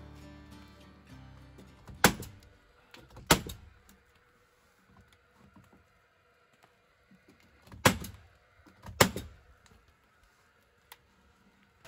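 Paslode cordless nailer firing four nails into wooden shiplap boards: sharp shots in two pairs, each pair about a second apart, with a gap of several seconds between the pairs.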